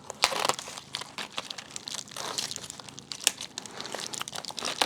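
Thick vacuum-sealed plastic packaging crinkling and crackling in irregular bursts as it is pulled and peeled away from the circuit boards that it clings to.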